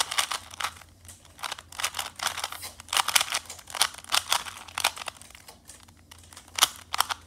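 Original Rubik's brand 3x3 cube being turned quickly by hand: its plastic layers clack and click in a fast, irregular run of sharp clicks.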